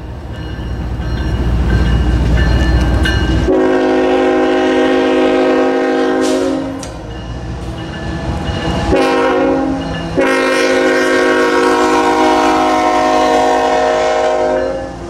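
Canadian National diesel locomotive's air horn sounding the grade-crossing signal as it passes: a long blast, a short blast about nine seconds in, and a final long blast. A loud low rumble fills the first few seconds before the horn.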